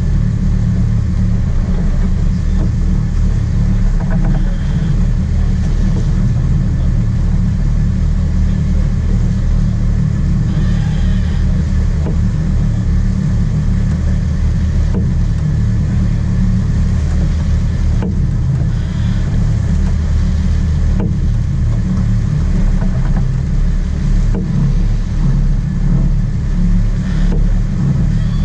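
Charter fishing boat's engine running steadily, a loud low drone.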